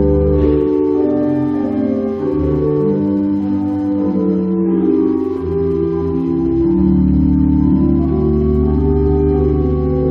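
Organ music: slow, sustained chords that change every second or two over long-held deep bass notes.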